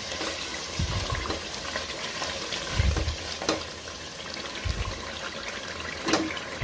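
Masala frying in oil in an aluminium pressure cooker, sizzling and bubbling steadily while it is stirred with a wooden spoon. The spoon knocks dully against the pot a few times, with a couple of sharper clicks.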